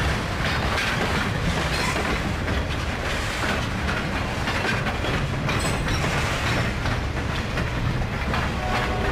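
Freight train of open hopper and gondola cars rolling past, its steel wheels clicking over the rail joints in a steady clickety-clack over a continuous rumble.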